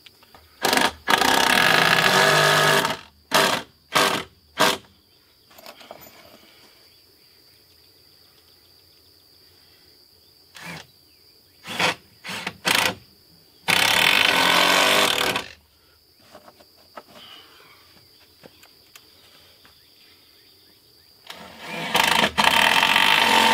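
Cordless drill driving long wood screws into treated lumber in bursts: a short one, a run of about two seconds, a few quick blips, then two more long runs later on.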